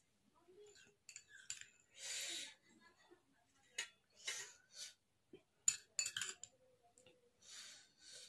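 Spoon and fork clicking and clinking against a metal plate of chow mein in a scattered series of sharp taps, with a few short breathy sounds in between.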